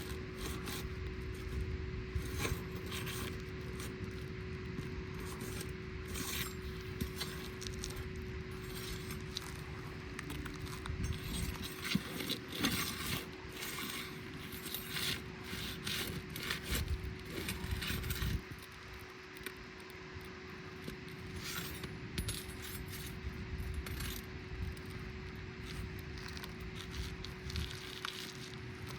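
Metal roofing tools scraping and clicking irregularly against asphalt 3-tab shingles as staples are pried out, over a steady faint hum.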